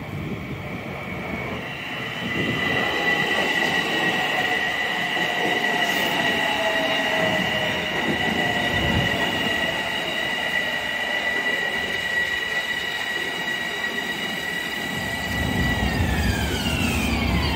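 Long Island Rail Road electric multiple-unit commuter train pulling into the station platform. It rumbles louder about two seconds in as it draws alongside, with a steady high whine over the rolling noise. Near the end the whine drops in pitch as the train slows to a stop.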